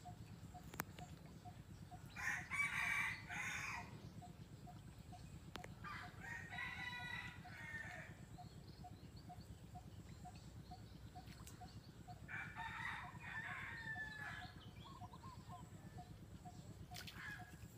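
A rooster crowing three times, each crow lasting one and a half to two seconds. The first, about two seconds in, is the loudest, and the others come near the middle and about two-thirds of the way through.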